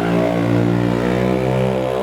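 Motorcycle engine running at steadily held revs, one constant pitch with a slight shift near the start.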